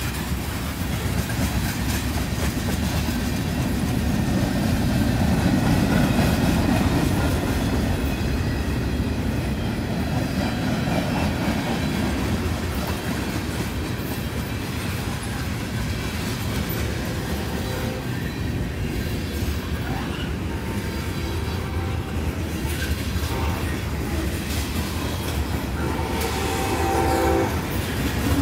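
Freight train of covered hoppers and tank cars rolling past close by: a steady rumble of wheels on rail. Near the end a locomotive horn sounds.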